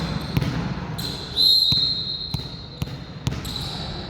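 Referee's whistle blown in one long steady blast starting about a second and a half in, over the echoing noise of a gym, with a few sharp knocks from ball contacts and play.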